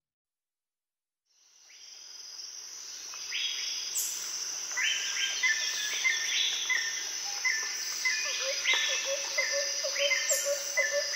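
Jungle ambience sound effect fading in out of silence: a steady high chorus of insects trilling, with birds calling in repeated short chirps over it.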